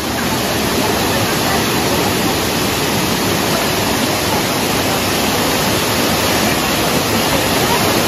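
Waterfall cascading over rocks: a steady rush of falling water.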